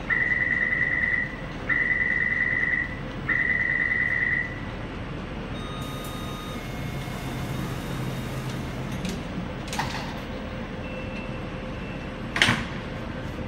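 Taipei Metro door-closing warning: three long, steady high-pitched beeps in quick succession over the station hum, signalling that the train and platform screen doors are about to close. A sharp clunk near the end.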